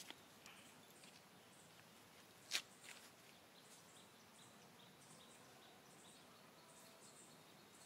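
Near-silent outdoor background with faint, short, high chirps repeating throughout. One sharp click comes about two and a half seconds in.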